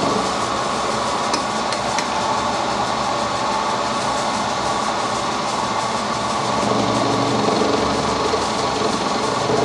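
Milling machine running, its end mill cutting a slot into a brass cap held on a mandrel: a steady machine whir with the cut's chatter.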